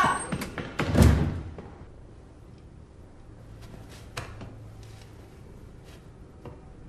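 A single heavy thud about a second in, then a quiet room with a few faint clicks.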